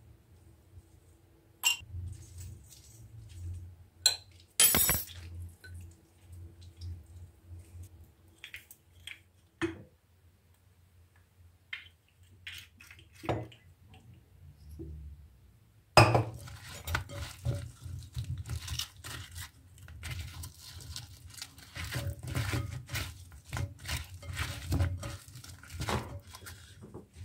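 Kitchen utensils and dishes clinking and knocking during food preparation: a few separate sharp clinks, then from about sixteen seconds in a long run of rapid clattering.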